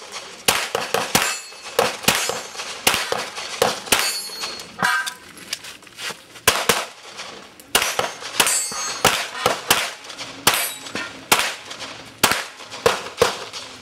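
9mm pistol fired in quick strings of shots, dozens in all, with short pauses between strings. Some shots are followed by a brief metallic ring.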